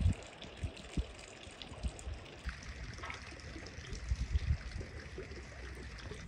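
Faint trickling, running water, with uneven low rumbles and a few scattered clicks.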